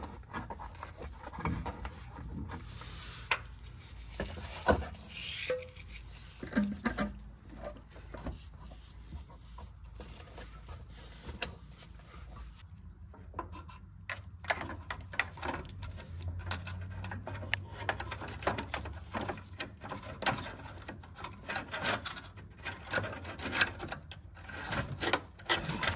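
Scattered light clicks, taps and rubbing from hands working a wiring loom and harness through a car's underbody, over a low steady hum.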